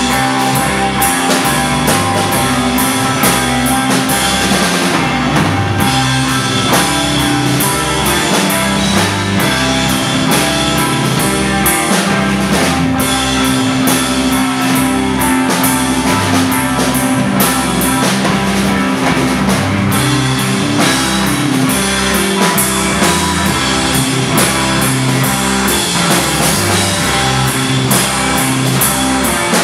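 A rock band playing loudly live: drum kit, two electric bass guitars, electric guitar and keyboard, driven by a steady beat.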